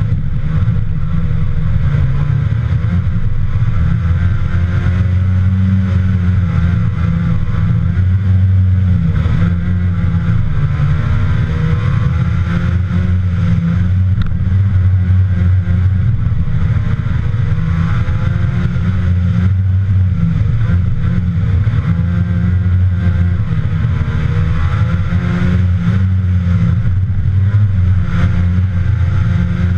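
Trabant rally car's two-stroke engine at full effort, loud throughout, its pitch climbing and dropping again and again as it is revved hard through gear changes and corners.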